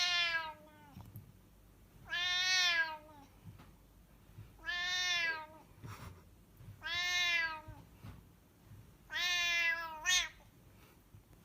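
A domestic cat meowing five times, about every two seconds, each meow under a second long and dropping slightly in pitch at the end.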